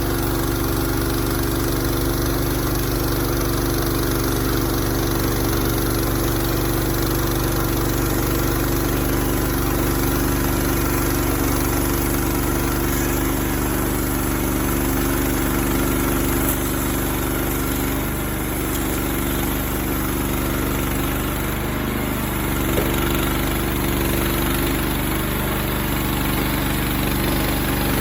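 An engine running steadily, its pitch and level shifting slightly about two-thirds of the way through.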